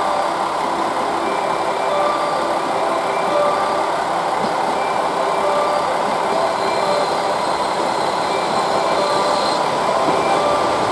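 KiHa 40-series diesel railcar running past on the station approach tracks, its diesel engine and wheels on the rails making a steady, even noise.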